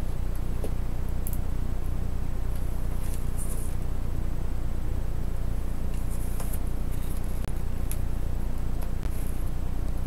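Faint clicks and light scrapes of small laptop parts being handled: a screw coming out and a small circuit board being worked loose from an opened laptop. A steady low hum runs under them and is the loudest sound.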